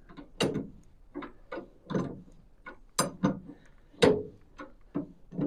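Hand tools working on the dune buggy's track rod end: a string of sharp, irregular metallic clicks and knocks, about two or three a second.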